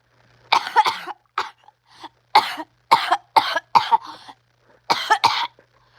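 A person's coughing fit: about a dozen short coughs in quick succession, some coming in twos and threes.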